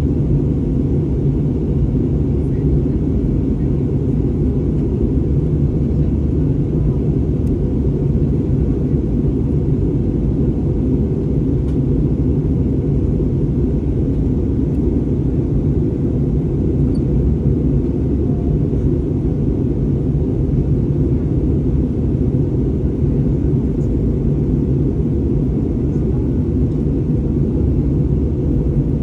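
Steady cabin rumble inside an Airbus A320neo airliner, the drone of its engines and airflow heard from a passenger seat, even in level throughout.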